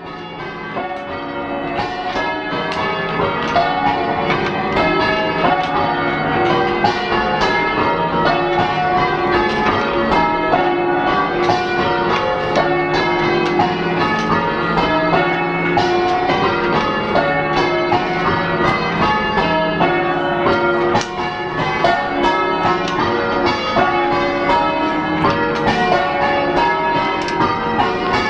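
The heaviest ring of six church bells in Wiltshire, all cast in the 1600s, rung full-circle in change ringing: a steady, continuous stream of overlapping bell strikes with a clonky, old-fashioned tone. The ringing fades in over the first few seconds.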